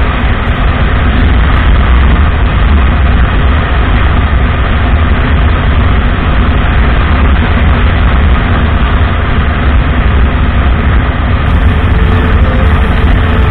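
Steady, loud wind rush and buffeting on the microphone of a Suzuki Boulevard M109R cruising at highway speed, with the bike's 1800 cc V-twin engine running underneath.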